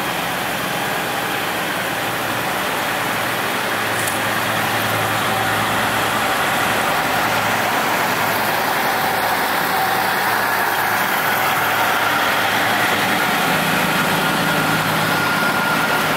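Diesel inspection railcar (Kereta Inspeksi 3) running steadily as it rolls past on departure from the station. The engine's low hum gets a little louder over the even rolling noise.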